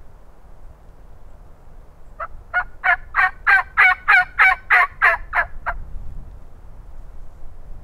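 A turkey call sounding a series of about a dozen hen yelps, about three a second, building up and then tapering off over roughly three and a half seconds. It is a calling sequence meant to draw an answering gobble from a tom. Low wind noise sits under it.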